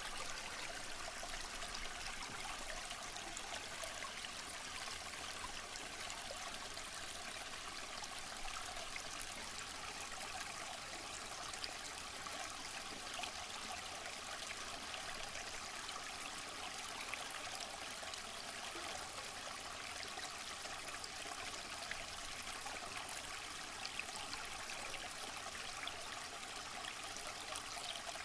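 Waterfall: a steady, unbroken rush of falling water, mostly hiss and splash with little deep rumble.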